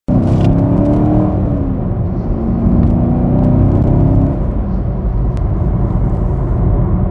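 Car cabin noise while driving: a steady low engine and road rumble, with an engine drone that drops away about four seconds in.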